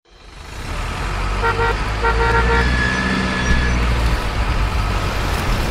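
Deep, steady truck engine rumble with two short truck-horn toots, about a second and a half and two seconds in, followed by a thin, higher tone held for about a second.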